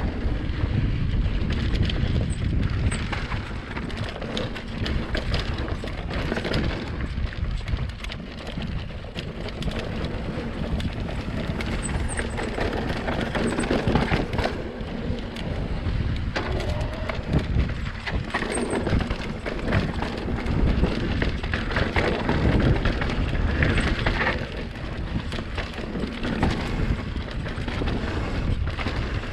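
Mountain bike riding down a sandy dirt trail: tyres rolling over loose, rough ground and the bike rattling over bumps, with wind rumbling on the microphone.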